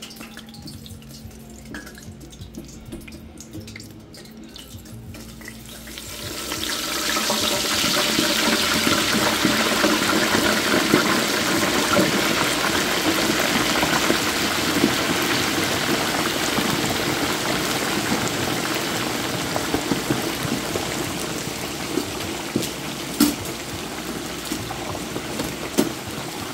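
Hot oil in a Masterbuilt electric turkey fryer sizzling and bubbling hard as a whole turkey goes in: a few seconds of low sound, then about six seconds in a sudden loud, steady frying hiss that eases a little toward the end, with a few sharp pops.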